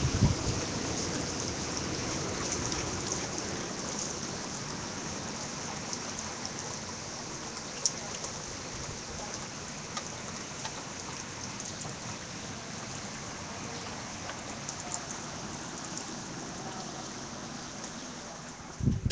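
Steady rain falling, an even hiss with scattered drip ticks, picked up by a phone's microphone; a loud bump near the end.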